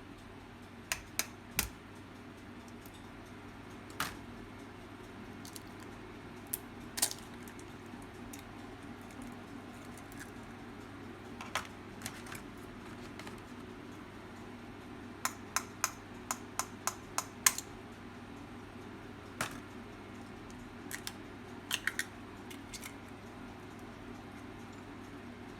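Scattered sharp clicks and light knocks from small objects being handled, including a quick run of about eight near the middle, over a steady low hum.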